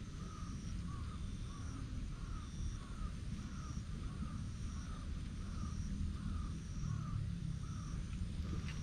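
A bird calling over and over in the background, about two short arched notes a second, over a steady low rumble.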